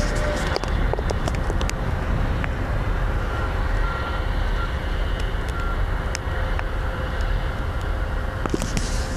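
Steady low rumble of wind on the microphone over a faint, even mechanical hum from distant machinery, with a few light clicks near the start and end.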